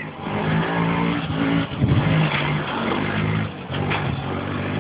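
Quad bike engine running and revving, its pitch stepping up and down several times.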